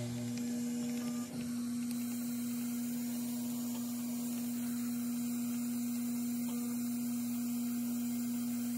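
A steady, unchanging hum on a single pitch, holding at an even level throughout.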